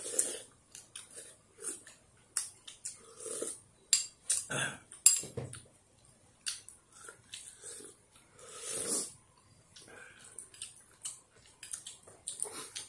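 Metal spoons clicking and scraping against small ceramic bowls while two people eat bánh canh noodle soup, with short slurps between the clicks.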